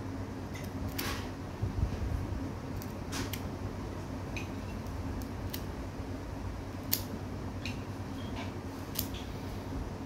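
Small scissors snipping and working at the tape bandage on a pigeon's fractured leg: a handful of sharp clicks spread out, the clearest about seven seconds in, over a low steady hum.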